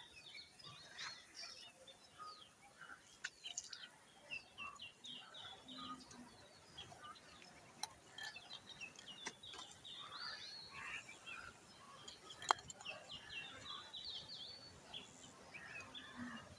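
Small birds chirping faintly, with many short high notes in quick runs. A few sharp clicks stand out, the loudest about twelve seconds in.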